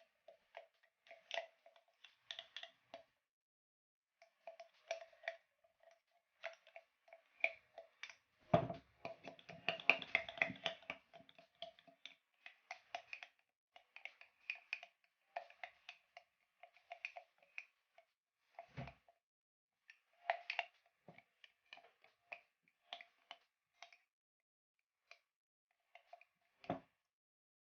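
A spoon stirring and scraping a thick honey-and-turmeric paste in a container, with irregular small clinks of the spoon against the container's side. The stirring grows busier and louder about nine seconds in, and there are a couple of dull knocks later on.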